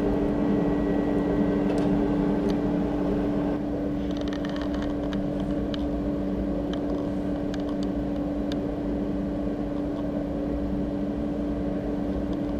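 Coal forge blower running with a steady hum and a constant low tone, with scattered light ticks and crackles from the fire; the hum drops slightly a few seconds in.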